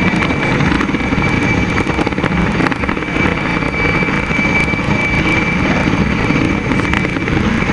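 Aérospatiale Puma military helicopter hovering low: a steady, rapid rotor beat with a high, even turbine whine over it.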